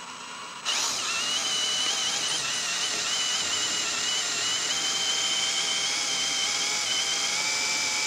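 Cordless drill spinning a power steering pump by its pulley, the drive belt being off, to pump fluid through and flush the steering lines. A steady high whine with a hiss, which steps up in speed and loudness under a second in and then holds.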